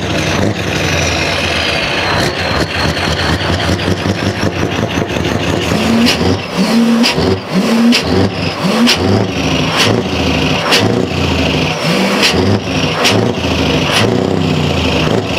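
Scania R500 truck's V8 diesel engine running loud. It holds a steady speed at first, then from about six seconds in it is blipped over and over, a short rising rev roughly every second, many of them ending in a sharp crack.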